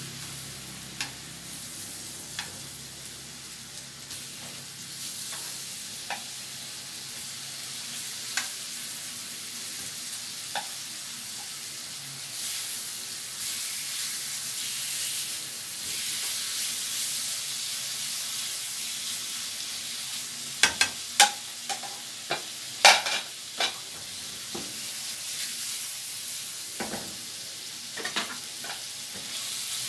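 Slices of marinated pork belly sizzling in melted butter in a frying pan, the sizzle growing louder about twelve seconds in. Sharp clicks and taps come now and then, with a cluster of louder ones about two-thirds of the way through.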